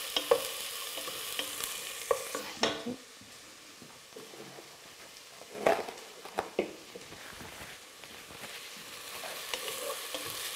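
Chopped onions frying gently in olive oil and smen in a pot, a soft steady sizzle, stirred with a wooden spoon. Several sharp knocks and clicks are scattered through it, and the sizzle is fainter after about two and a half seconds.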